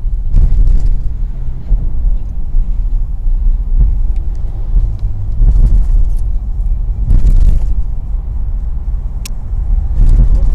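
Steady low rumble of road and wind noise from a moving car, heard with a window open. Several louder whooshes come through it as oncoming vehicles pass close by, one near the end.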